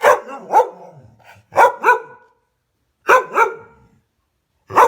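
Dog barking loudly in quick doubled barks: three pairs about a second and a half apart, then one more bark at the end.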